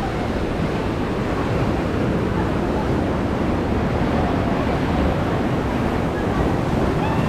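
Ocean surf surging and washing in over the shore, a steady rushing noise, with wind buffeting the microphone.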